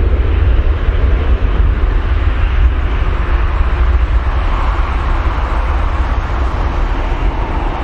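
Boeing 737-800 jet airliner with its CFM56 engines running at high power on the departure runway, a steady, loud, deep rumble.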